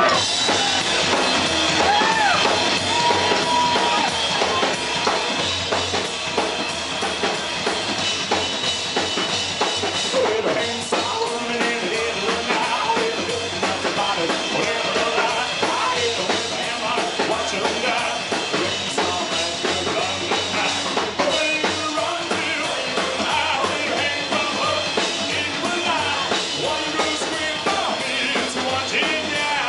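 Live psychobilly band playing loud and without a break: a drum kit, upright bass and a singer.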